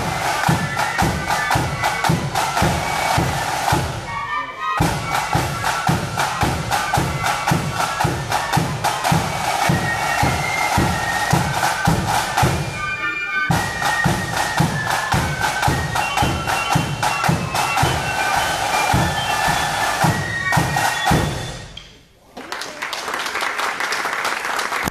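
Marching flute band playing a tune, with snare drums and a bass drum beating a steady, busy march rhythm under the high flute melody. The drums drop out briefly twice while the flutes carry on. The tune ends about three seconds before the end, followed by an even wash of noise.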